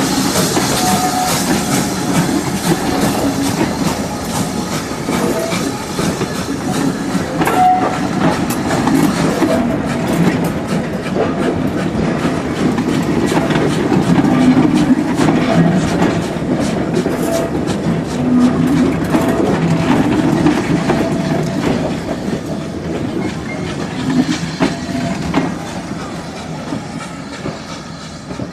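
Steam-hauled passenger coaches rolling slowly past close by, their wheels clicking and clattering over the rail joints. The sound fades near the end as the last coach moves away.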